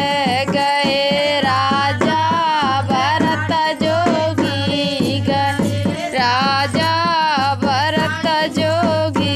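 Indian folk song (lokgeet) with a singing voice over a steady dholak drum beat.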